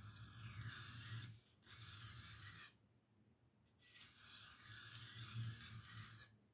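Butcher knife blade being drawn back and forth across a sharpening hone to put the edge back on, soft scraping in three stretches with short pauses between.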